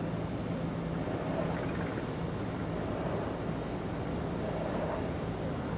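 Boat engines running steadily at low speed on the water, an even low hum with no revving.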